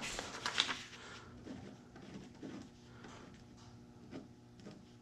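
Faint scratching of a pen writing on a paper receipt, with a few small ticks and paper rustles.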